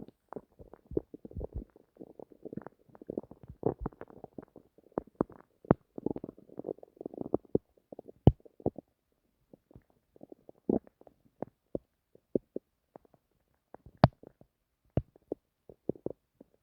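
A person's stomach rumbling and gurgling in a run of short, irregular bubbling pops and squelches, dense for the first half and then thinning out to scattered single pops.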